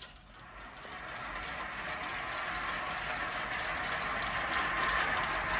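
Motorized range target carrier running along its track to bring the target back: a steady mechanical rattle that grows louder as it approaches.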